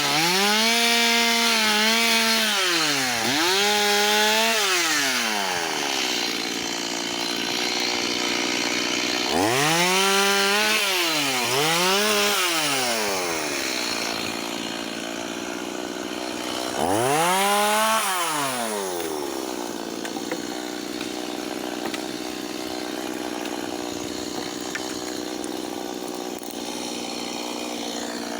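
Two-stroke chainsaw cutting firewood, the throttle opened to a high whine and let off again several times, then settling to a steady lower running speed for the last third.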